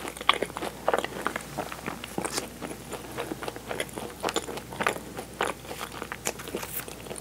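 Close-miked chewing of a Portuguese-style egg tart: the flaky pastry crust crunches and crackles in quick, irregular small clicks.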